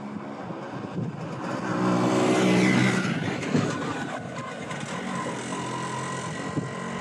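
A motor vehicle driving past: its engine and tyre noise grow louder to a peak about three seconds in, then ease off as it moves away.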